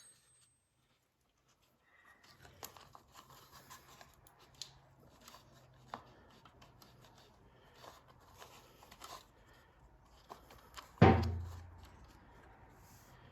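A wrench working the drain bolt on a small-engine carburetor's float bowl: faint scattered clicks and handling noises, then one loud sharp knock about eleven seconds in that rings briefly.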